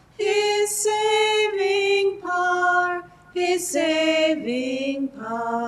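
A woman's solo voice singing the responsorial psalm refrain unaccompanied, drawing the word "nations" out over several long held notes.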